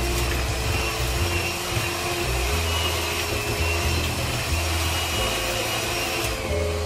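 Moulinex electric hand mixer running steadily with a high motor whine, its beaters whipping a thick cream-cheese and cream mixture in a bowl.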